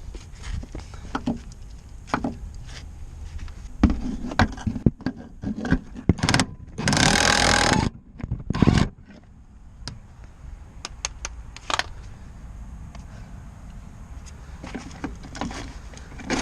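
Cordless impact wrench hammering for about a second and a half, then a short second burst, among clinks and knocks of tools and metal parts.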